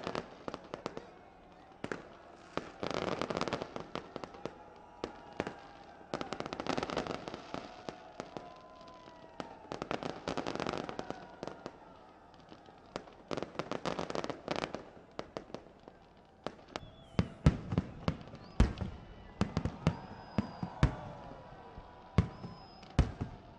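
Fireworks display: bursts of crackling every three to four seconds, then, about two-thirds of the way in, a run of sharper, louder bangs with a few short high whistles.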